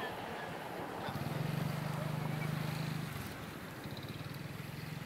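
A small engine running with a low, steady drone. It is loudest for about two seconds near the start, then carries on more faintly, over a steady wash of wind and water noise.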